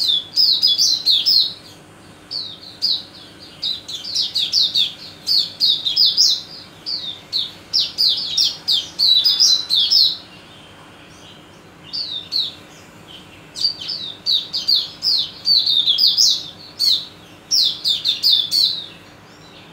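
White-eye (mata puteh) songbird singing in quick phrases of rapid, high, falling chirps, with a longer pause about halfway through and another near the end.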